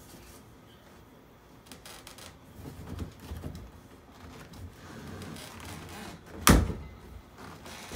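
A PVC sleeve being slid by hand down a cemented PVC drain pipe: plastic rubbing and scraping, with one sharp knock about six and a half seconds in.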